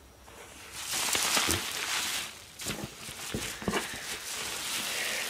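Blue plastic bubble wrap and a cardboard box lid being handled, crinkling and rustling with a few sharp crackles, starting about a second in.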